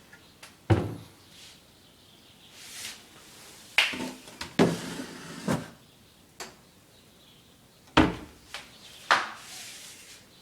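Kitchen cabinet doors and drawers being opened and closed: a series of about six knocks and thuds, spread unevenly, with short sliding rubs between some of them.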